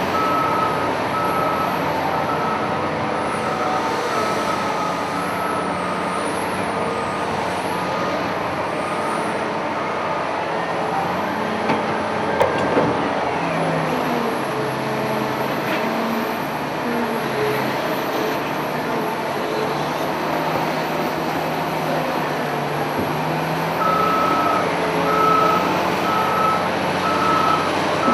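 Caterpillar 992K wheel loader's diesel engine running under varying load, its pitch shifting up and down. A reversing alarm beeps steadily for the first third and starts again near the end as the machine backs up.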